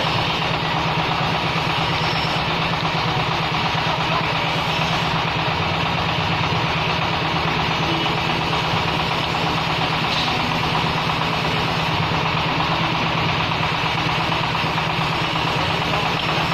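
A brick and concrete-block press machine running, its engine going at a steady, even pace with a rapid low pulse.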